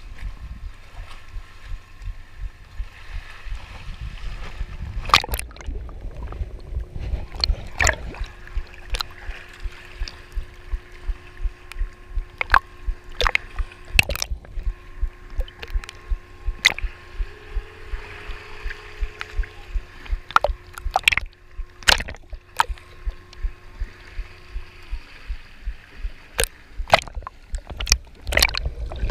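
Water sloshing and gurgling around a camera at and below the waterline, with a steady run of low thuds about twice a second and scattered sharp clicks. A faint steady hum sounds underneath and stops near the end.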